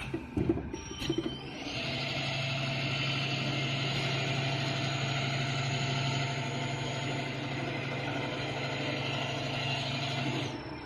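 Semi-automatic flowmeter oil filler running: a few knocks in the first second, then its pump starts with a steady hum and hiss as cooking oil pours into two PET bottles, cutting off shortly before the end when the fill is done.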